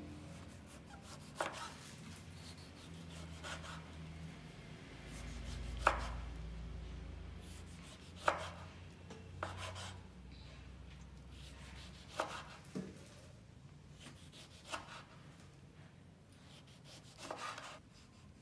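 Kitchen knife slicing through a tomato, the blade knocking on a bamboo cutting board at each cut, one knock every one to two seconds. A low hum sits underneath for most of the first two thirds.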